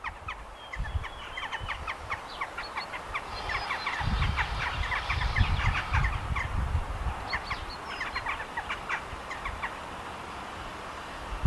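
Birds singing, many quick chirps overlapping, with a low rumble from about four to nine seconds in.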